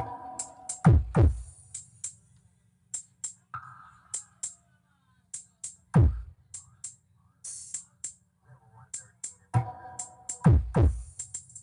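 Electronic battle-sound remix played loud through a 3A mini sound system and picked up by a phone mic that struggles with it. Sparse deep bass kicks drop in pitch, over crisp hi-hat ticks and short chopped vocal samples.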